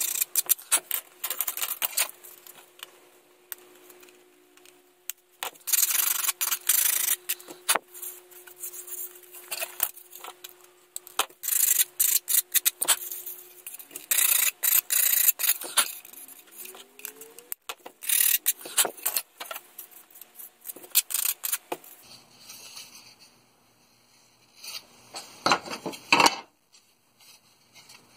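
Sanding sponge rubbed back and forth in repeated strokes against a plastic model part, smoothing off moulding flashing. Near the end there are a couple of knocks as the parts are handled.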